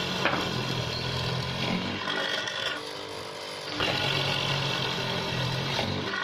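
Electric wood mortiser (a drill-driven hollow-chisel mortising machine) running, its motor note shifting between louder and lighter stretches as it works the wood, with a sharp click about a third of a second in.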